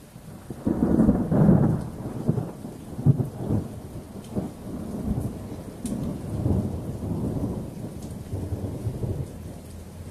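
Rolling thunder from a passing thunderstorm. It breaks in about a second in and is loudest at first, then rumbles on in uneven waves. Light rain patters underneath.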